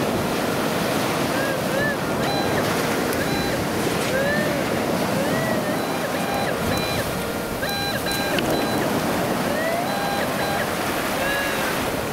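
Surf washing steadily on the beach, over which a Whites TDI Pro pulse-induction metal detector sounds its target signal as the coil is swept over a hole in the sand. It gives repeated short tones that rise and fall in pitch, and brief beeps at a few fixed pitches.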